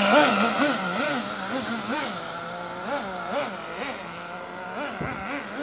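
XTM 24.7 nitro RC car's small glow engine revving up and down about twice a second as the throttle is blipped, growing quieter over the first couple of seconds as the car drives off. The owner is unsure whether the engine is tuned too lean or too rich.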